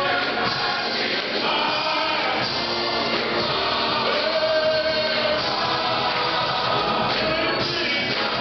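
Large all-male gospel chorus singing together at a steady, full level, with long held notes.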